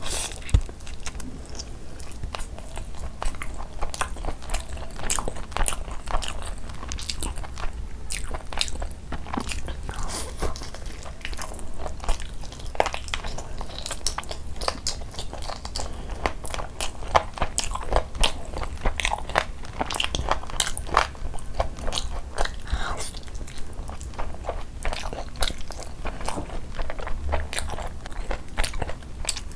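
Close-miked eating: a person biting into a spicy chicken ghee roast drumstick and chewing mouthfuls of it with khichdi, eaten by hand. Many quick, irregular sharp clicks and wet mouth sounds follow one another without pause.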